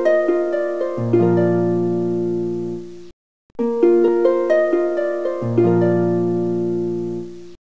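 Intro music of plucked strings: a short phrase of fading harp-like notes with a low bass note joining. It cuts off abruptly about three seconds in, then plays again from the start and cuts off again near the end.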